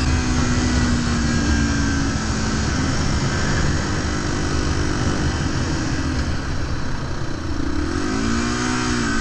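Motorcycle engine running under way, its note falling slowly over the first few seconds, then dipping and rising again about eight seconds in, over a steady rush of wind and road noise.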